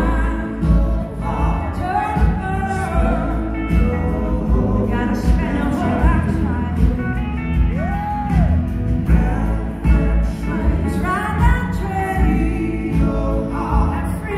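Live blues-rock band playing with sung vocals over drums, bass and guitars, with backing singers, heard from the audience in a concert hall. A long held sung note about eight seconds in.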